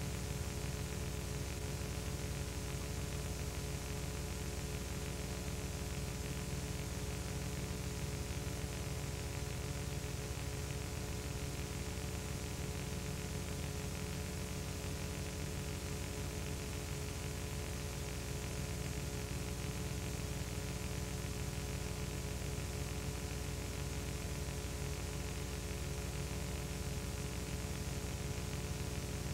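Steady hiss with a low electrical hum and a few faint steady tones, unchanging throughout, with no other sound: the background noise of a soundless recording.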